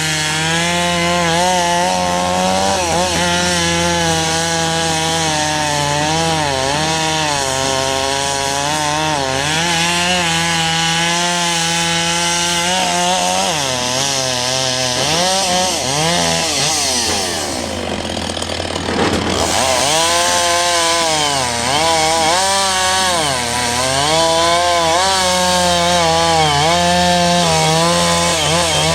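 Caterpillar D7 bulldozer's diesel engine working under load, its pitch rising and falling continually. About two-thirds through, it drops low and quieter for a moment, then climbs back up.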